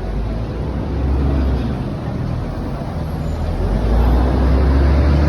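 Motor vehicle traffic: a steady low engine rumble over street noise, louder from about four seconds in.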